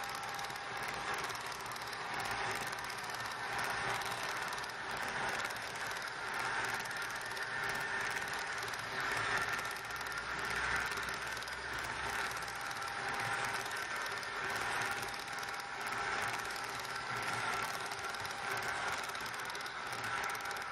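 Fleischmann model train low-loader wagons rolling past on the track: a steady rattle and clatter of small metal wheels on the rails, with a steady whine underneath.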